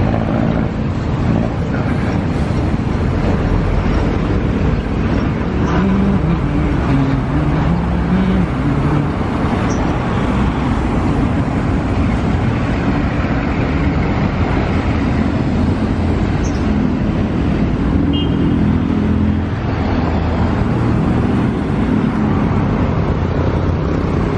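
Road traffic passing on a multi-lane city road: cars, vans and jeepneys driving by, a steady loud rumble of engines and tyres.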